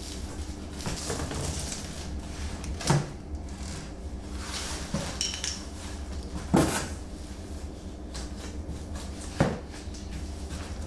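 Cardboard box flaps being handled and shredded paper packing fill rustling as hands dig into it, with a few sharp knocks of the cardboard, about three, six and a half and nine and a half seconds in.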